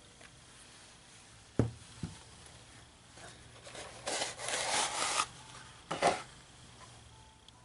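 Handling noise from a trail shoe being turned over in the hands: a couple of light knocks about a second and a half in, a rubbing rustle around four to five seconds in, and another knock near six seconds.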